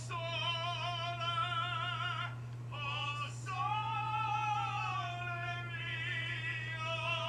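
Operatic singing voice holding long notes with a wide vibrato, in two phrases with a short breath between them.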